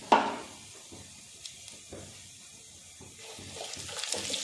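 Fennel seeds and whole spices sizzling in hot oil in a steel pan, a tempering, with a sharp knock at the very start. The sizzle is quiet at first, then grows louder and crackly near the end as the spices are stirred with a wooden spatula.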